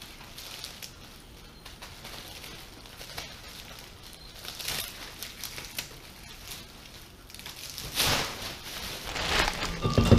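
Black plastic garbage bag rustling and crinkling as it is handled and its drawstring pulled closed, in short irregular bursts, loudest about eight seconds in.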